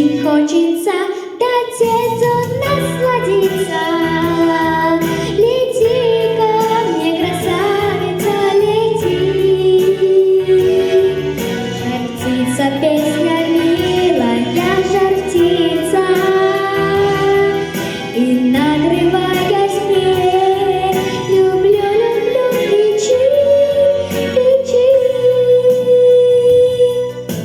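Female voice singing a wordless melody with sliding runs over an instrumental backing track, ending on a long held high note.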